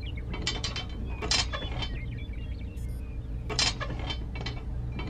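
Plastic toy train track sections clicking and clattering as they are set down and snapped together by hand: several sharp clicks in small clusters, over a steady low hum.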